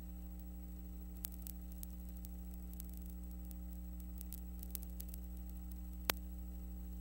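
Steady electrical hum with a faint hiss and a few scattered clicks, the sharpest about six seconds in: the noise of the transfer from a silent film with no recorded sound.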